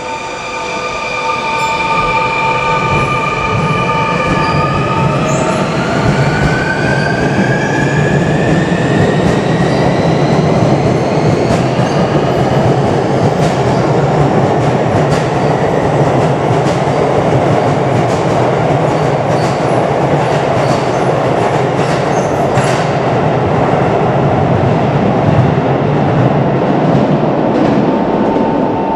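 Sotetsu 20000 series electric train pulling away from a platform: the traction motor whine climbs in pitch over the first several seconds as it accelerates, then gives way to steady wheel and rail noise with scattered clicks as the cars run past.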